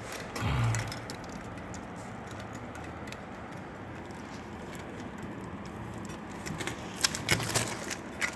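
Clicks and light knocks of plastic toilet-cistern parts being handled: the dual-flush push-button assembly and lid. A dull thump about half a second in and a cluster of sharp clicks near the end, over a steady low hum.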